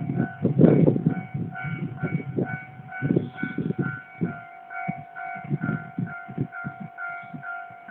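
Japanese railway level-crossing warning bell ringing in rapid repeated strokes, about two to three a second, signalling that a train is approaching. Wind buffets the phone's microphone in irregular gusts.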